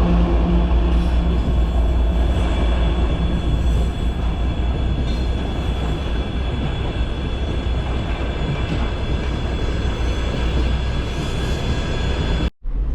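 A heavy freight train passing over a level crossing, its wagons making a continuous loud rumble and rattle. The sound breaks off briefly near the end.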